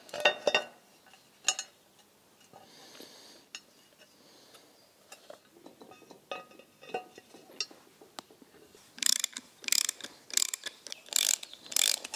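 Light metal clinks and taps as a cast timing chain cover is seated on an engine block. From about nine seconds in, a ratchet wrench clicks in quick repeated strokes, about three a second, as the cover bolts are tightened.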